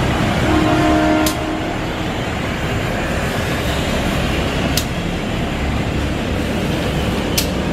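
Steady rumble of a train at a station platform. A brief pitched tone sounds about half a second in, and three sharp clicks are spread through.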